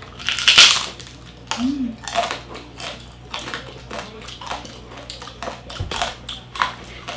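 Close-miked eating sounds of crispy roast pig (lechon): a loud crunching bite in the first second, then chewing with small crunches and wet mouth clicks.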